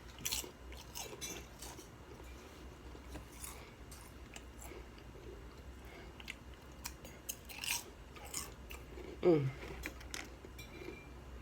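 A person chewing and crunching potato chips close to the microphone, with scattered crisp crunches. There is a brief voiced sound about nine seconds in.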